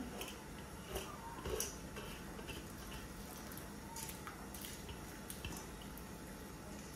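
Soaked basmati rice scraped with a silicone spatula out of a steel bowl, dropping and splashing into a pot of boiling water, with a few soft taps of the spatula on the bowl.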